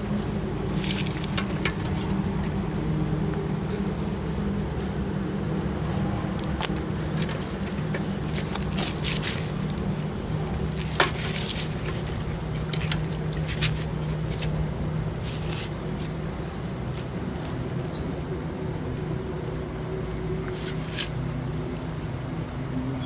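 Crickets chirring in one steady high-pitched note, over a low steady hum. Small scattered clicks and taps from handling a fishing rod and hook on a concrete edge, with one sharper click about eleven seconds in.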